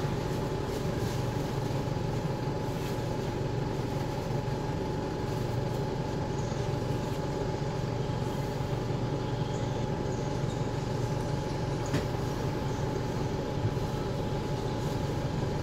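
Cabin noise inside a KL6850A2 low-floor midibus: a steady low drone from the running bus with a thin, steady whine above it. A single light click comes about twelve seconds in.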